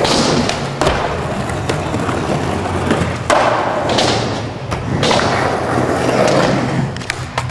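Skateboard wheels rolling across a skatepark floor and ramps, the noise swelling and fading as the board passes. Several sharp knocks of the board come down through it.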